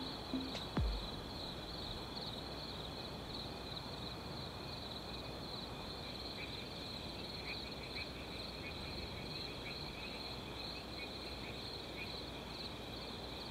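A steady chorus of chirping insects, with a brief falling sweep just under a second in.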